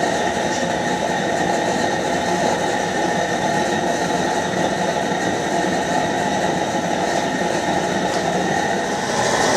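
Gas torch burning steadily with a continuous rushing noise and a faint steady whistle, heating a copper boiler for silver soldering.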